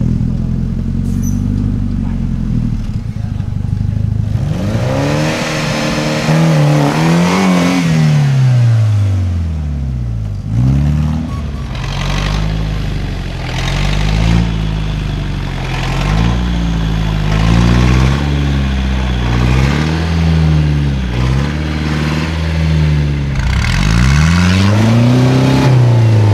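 Off-road trial buggy engine idling low, then revved hard again and again, its pitch rising and falling every second or two as the buggy works up a steep dirt climb.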